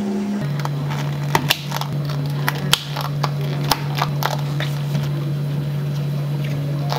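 A steady low machine hum, dropping in pitch just after the start, with a quick run of light clicks and taps in the first half.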